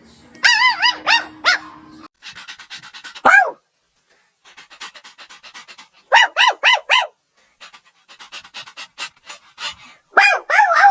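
Puppies yapping in quick high-pitched runs of four or five yips, with fast panting between them and a couple of longer yelps that slide down in pitch, one about three seconds in and one near the end.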